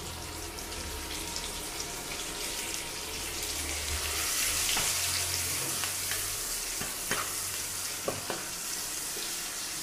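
Sliced onions sizzling in hot oil in a nonstick frying pan as they are stirred with a spatula, with a few light knocks of the spatula against the pan.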